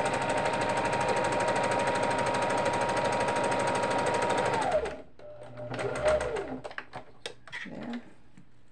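Kenmore electric sewing machine stitching at a steady speed, a motor whine over rapid needle clatter, stopping sharply about five seconds in. A short second run of stitching follows about a second later, then a few light clicks.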